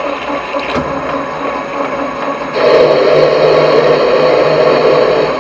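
Small metal lathe running, with a click about a second in. From about two and a half seconds in, a louder cutting noise: a single-point threading tool taking a light 3-thousandths pass along the thread. It stops just before the end.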